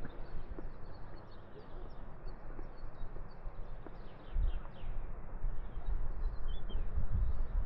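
Small birds chirping over steady outdoor ambience, with footsteps on a rocky path and low thuds and rumbles on the microphone, strongest about halfway through and near the end.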